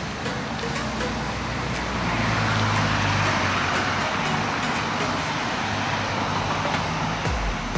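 Road traffic on the road beside the footpath: a steady hiss of passing vehicles, with one passing vehicle swelling louder about two seconds in and fading away over the next few seconds.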